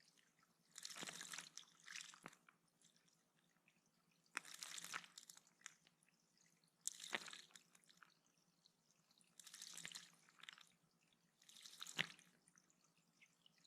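A small bird bathing in a shallow pond, splashing in five short bursts a couple of seconds apart, each a second or less of wing-fluttering water spray with sharp little drip sounds.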